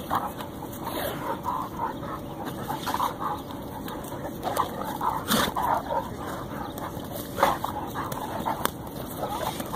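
Great Dane and English Mastiff play-wrestling, vocalizing in short broken whines and grunts through the scuffle. There is a sharper, louder yelp or bark about five seconds in and another about seven seconds in.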